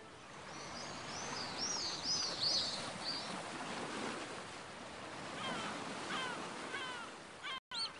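Steady wash of sea surf and wind, with small birds chirping over it. A quick run of high chirps comes in the first three seconds, then a series of shorter, lower falling chirps from about five seconds in.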